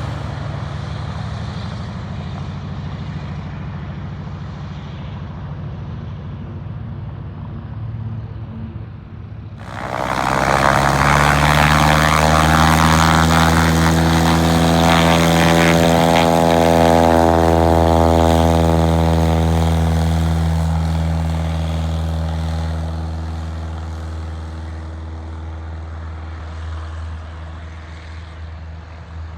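Floatplane's propeller engine: a steady drone, then about ten seconds in a sudden surge to full power, typical of a takeoff run. It holds loud for about ten seconds and then gradually fades away.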